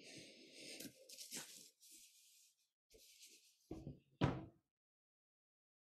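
Faint room noise with a few short knocks, the loudest about four seconds in.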